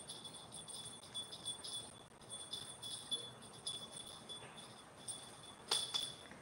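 Small bell on a cat teaser wand jingling in short shakes as the wand is waved, with one sharper tap near the end.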